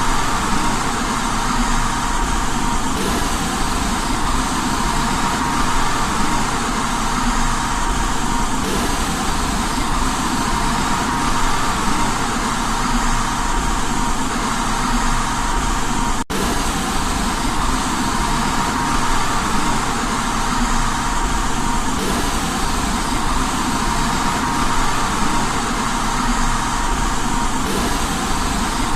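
Steady white noise for baby sleep: an even, unchanging hiss with a faint steady tone running through it. The noise drops out for an instant about halfway through.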